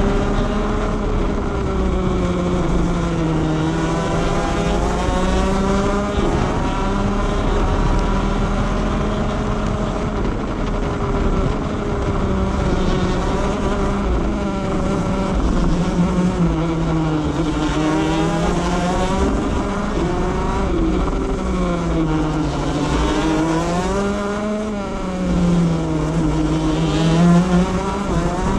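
Two-stroke shifter kart engine at racing speed, its pitch climbing and dipping again and again as the kart brakes and accelerates through the corners, with wind rush on the microphone.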